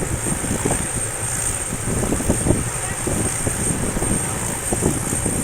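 Helicopter on the ground just after landing, engine running and rotor blades still turning, a steady noisy drone with irregular low thumps.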